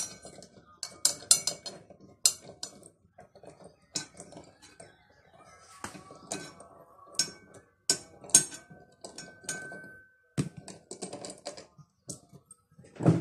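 Screwdriver working a metal retaining ring off a washing machine's drum assembly: irregular metal clicks, scrapes and clinks, with a brief metallic ring about midway.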